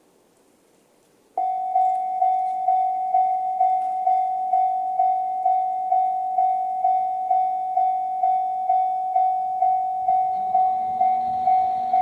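Japanese level-crossing warning bell of the JR East Tohoku type, an electronic ding, starting about a second and a half in and repeating evenly about twice a second at a single pitch. A low hum joins near the end.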